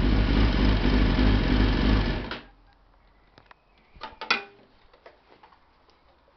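Kawasaki ZX-6RR inline-four engine running smoothly on freshly cleaned spark plugs, its misfire cured, then shut off abruptly about two seconds in. A few light clicks and knocks follow.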